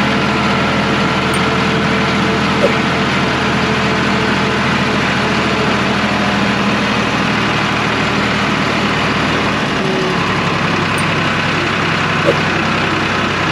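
Eicher 555 tractor's diesel engine running steadily. Its pitch shifts lower about ten seconds in, and there are two short clicks.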